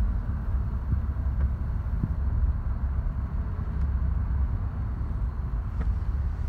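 Steady low rumble of a car driving on a freeway, heard from inside its cabin.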